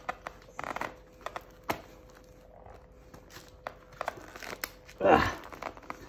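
Nylon webbing spur strap and its Cobra buckle being handled against a boot: short rustles and scattered small clicks and taps as the two buckle halves are worked at without snapping together. A short grunt-like vocal sound about five seconds in.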